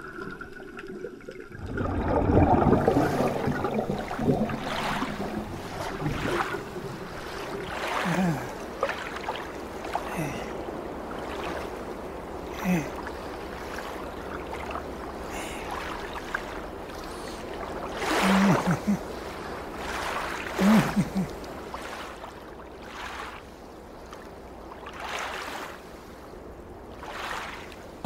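Water rushing loudly about two seconds in, then washing and sloshing in swells every few seconds, with a few short low tones between.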